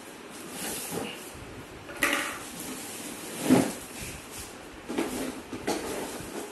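Cardboard box and plastic wrapping being handled as a parcel is unpacked, with scattered scraping and rustling sounds. A louder knock comes about halfway through.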